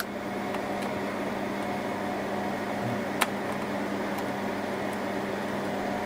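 Steady fan hum with a constant low tone, and one sharp click about three seconds in.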